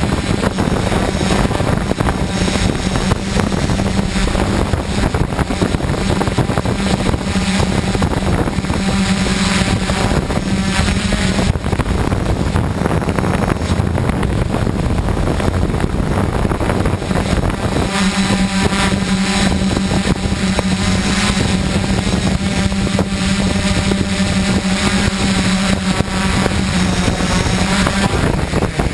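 DJI F550 hexacopter's six motors and 10-inch props droning in flight, a steady hum that drops away for several seconds midway and then returns, over a constant rushing noise.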